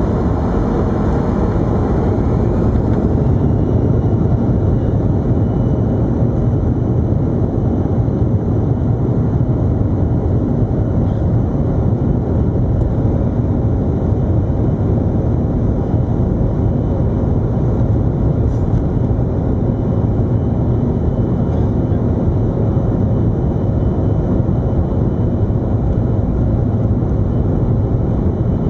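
Jet engines of a Boeing 737-300 on takeoff: a steady, loud noise with most of its weight low down and no change through the stretch.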